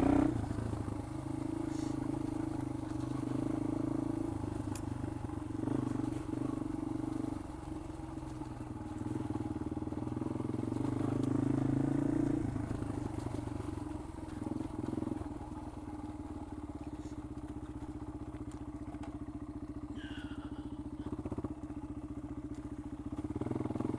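Yamaha XT225's single-cylinder four-stroke engine running steadily under light throttle, then dropping to a lower, quieter run from about halfway through as the bike slows and creeps along.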